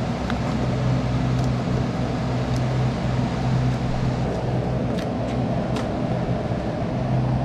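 Steady rushing noise over a low, even hum, of the kind a fan, air-conditioning unit or nearby traffic makes, with a few faint light clicks.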